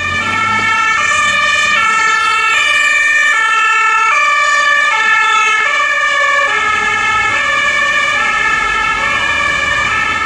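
German two-tone emergency siren (Martinshorn) on an emergency doctor's car, alternating between two pitches about every three-quarters of a second, signalling an emergency run with right of way.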